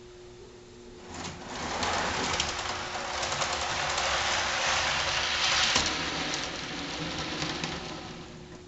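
HO scale freight cars rolling through the hump yard's grass-clump retarder, a hissing rustle full of fast wheel clicks. It swells about a second in and fades near the end. The clumps are raised all the way, so the brush drags on the cars to slow them.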